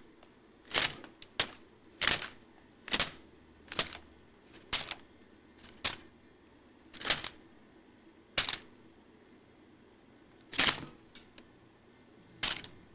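About a dozen sharp, short clicks or taps at uneven intervals, roughly one a second, with a longer gap before the last two.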